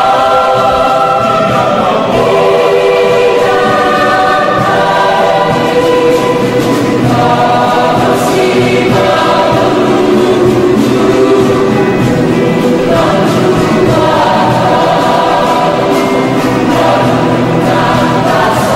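Mixed choir singing a folk song in harmony, holding chords that change every second or two, accompanied by an acoustic guitar.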